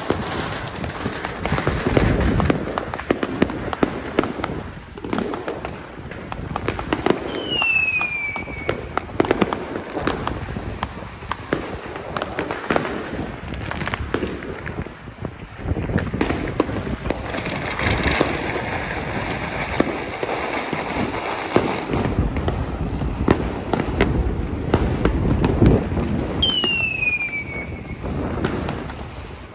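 Many fireworks going off at once: a steady barrage of bangs, pops and crackling. Twice, about eight seconds in and again near the end, a falling whistle sounds over the bangs.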